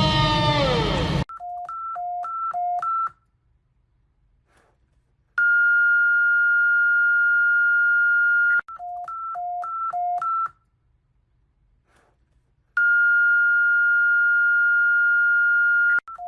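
Emergency alert alarm tone: a few quick beeps alternating between a high and a low pitch, a short pause, then a long steady beep of about three seconds, the whole pattern repeating twice. A wailing siren cuts off about a second in.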